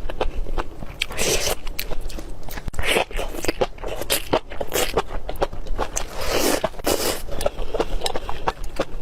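Close-miked eating sounds: a person biting and chewing food, a continuous run of crunches and sharp clicks.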